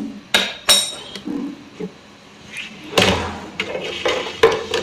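Small metal clinks and knocks as a screwdriver and metal parts of a sewing machine are handled during cleaning: two sharp clinks near the start, then a second or two of scraping and knocking near the end.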